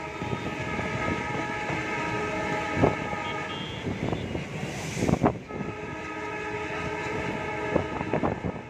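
Twin ALCO diesel locomotives arriving with a passenger train, the horn sounding in two long blasts with a short break about five seconds in, while the wheels click over the rail joints.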